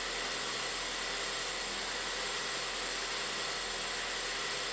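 Ford 1.6 L EcoBoost four-cylinder engine idling steadily, surging a little bit; the mechanic suspects a bad upstream air-fuel ratio sensor.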